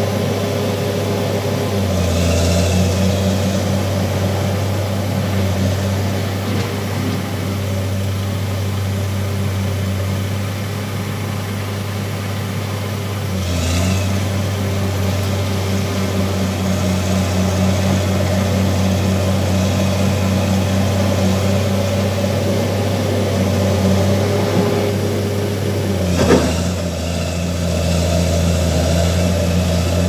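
Bulldozer's diesel engine running steadily under load as the blade pushes a pile of earth, its note shifting briefly about two seconds in, near the middle and a few seconds before the end. A sharp clank is heard a few seconds before the end.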